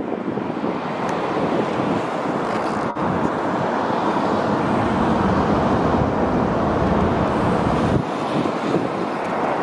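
Wind rushing and buffeting on the microphone as a steady noise with a low rumble. Near the end the sound changes abruptly and the low rumble drops away.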